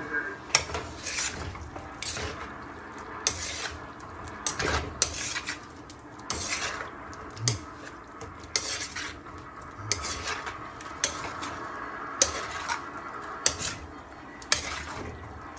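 A utensil stirring and scraping food in a pan, with repeated sharp clinks against the pan's side.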